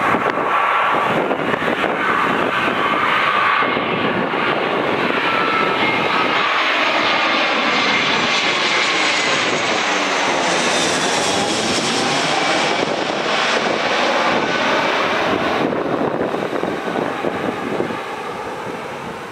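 Airbus A321-200 jet airliner on final approach, flying low directly overhead: steady jet engine noise with whining tones, sweeping as the aircraft passes over about ten seconds in and easing off near the end as it moves away.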